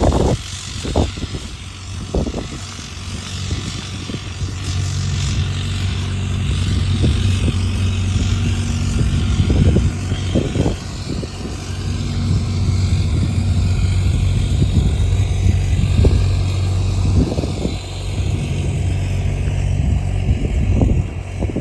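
Engine-driven construction-site water pump running steadily with a low, even drone, with scattered thumps.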